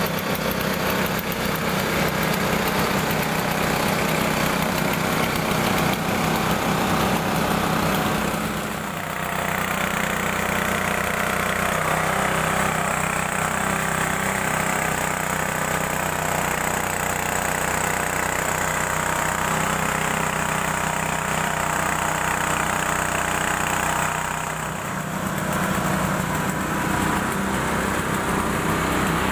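Small petrol engine of a portable well-drilling rig running steadily under load, turning the drill rod. The sound dips briefly twice.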